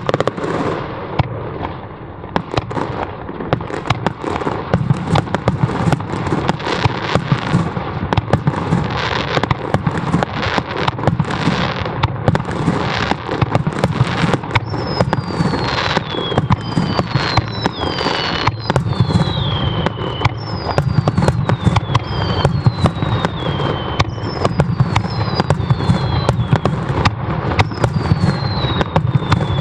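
Aerial fireworks display: shells launching and bursting in quick succession, sharp bangs over a continuous low rumble. Through the second half, a run of shrill whistles each falls in pitch over about a second.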